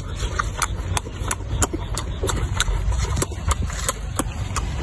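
Chewing on crisp fried pork: a run of sharp crunching clicks, about three a second, over a steady low rumble.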